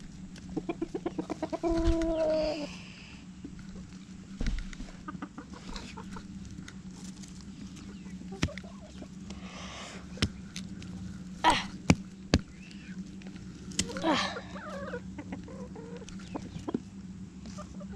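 Hens clucking. A quick run of clucks rises into a loud squawk about two seconds in, and another call comes near the end. Scattered sharp clicks and knocks are heard, and a steady low hum runs underneath.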